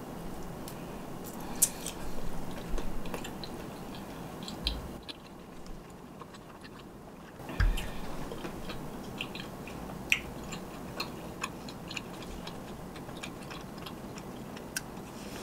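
Quiet chewing of a soft yellow rice cake, with irregular small mouth clicks and a low thump a little past halfway.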